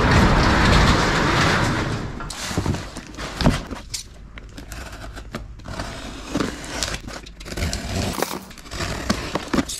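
A loud rushing noise for about the first two seconds, then packing tape on a cardboard box being slit with a small knife: scattered scratchy scrapes and light taps on the cardboard.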